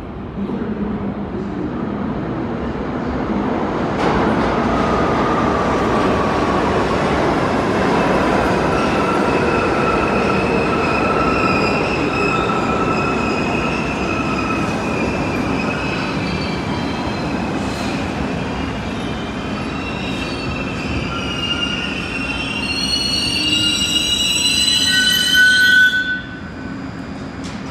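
New York City subway train running through an underground station: a steady rumble of steel wheels on rail with drawn-out, high-pitched wheel squeal. The squeal grows louder and busier toward the end, then the sound drops off suddenly.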